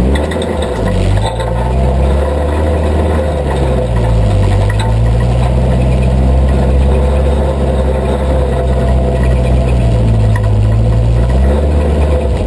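Off-road vehicle engine running at low revs. Its pitch dips about four seconds in, holds steady, and rises again near the end as the throttle changes.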